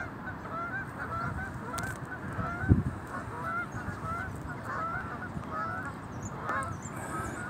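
A flock of geese honking, many short overlapping calls several a second, over a low rumble. There is one loud thump a little under three seconds in.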